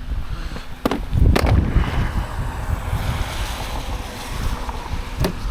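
Wind buffeting the microphone in a low rumble, with a few sharp knocks or clunks: two close together about a second in and one more near the end.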